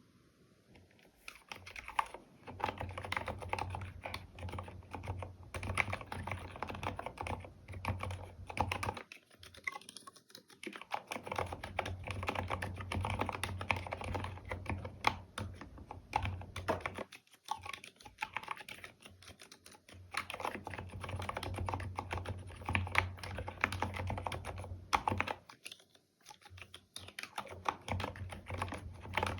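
Typing on a mechanical keyboard with stock, unlubricated Gateron Black silent linear switches: rapid key presses that break off briefly three times.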